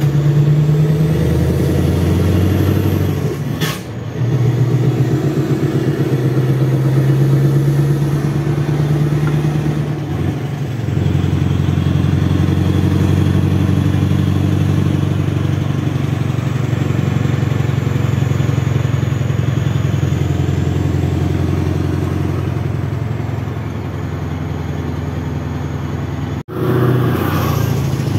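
Scania truck's diesel engine running steadily under way, heard from inside the cab, with road noise. The engine note dips briefly about four seconds in and shifts again near ten seconds. Near the end it cuts off abruptly to a different engine note.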